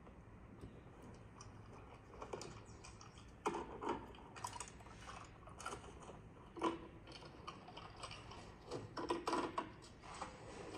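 Scattered light clicks and taps, quiet, with a few in quick succession about nine seconds in.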